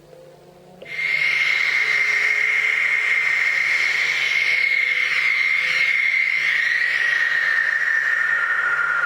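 Whistling wind sound effect: a high, steady whistle over a hiss comes in suddenly about a second in and holds, sliding a little lower near the end, with a faint low hum beneath.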